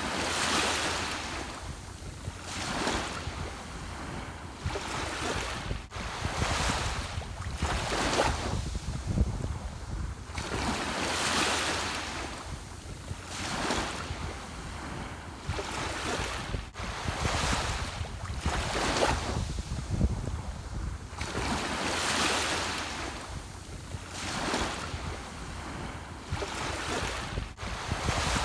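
Ocean surf: waves breaking and washing in, a rising and falling hiss every two to three seconds over a steady low rumble.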